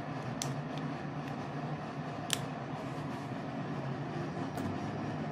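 A few sharp clicks as the display of an iPhone XS Max is pressed down into its frame to seat it, the loudest about two seconds in, over a steady low hum.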